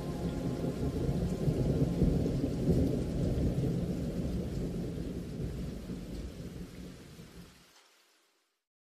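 Thunder rumbling over steady rain, swelling about two seconds in and then fading out near the end.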